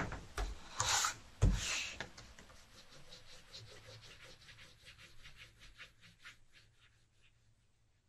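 Paper sliding and shuffling on a wooden drawing board, with a thump about a second and a half in. Then an orange crayon rubs on paper in quick repeated colouring strokes that fade out near the end.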